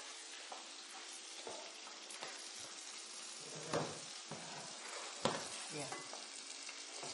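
Food sizzling in a frying pan on a gas hob, stirred with a spatula, with two louder clatters of the utensil against the pan about three and a half and five seconds in.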